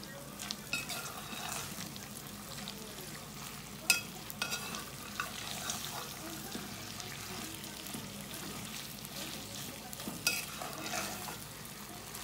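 Shredded roast pork sizzling in hot oil in an aluminium pot as it is reheated, stirred with a metal spoon that scrapes and clinks against the pot several times, loudest about four seconds in.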